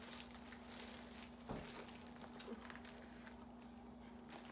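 Faint sounds of eating a shellfish boil by hand: plastic bags crinkling and shells being handled, with scattered small clicks and one soft knock about a second and a half in, over a steady low hum.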